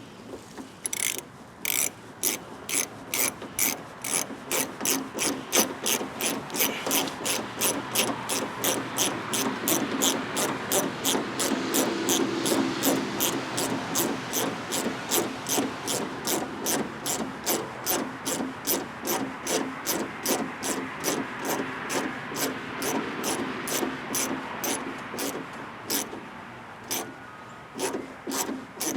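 Hand socket ratchet driving a bolt in: a long, even run of sharp clicks, a few a second, with a couple of short pauses near the end.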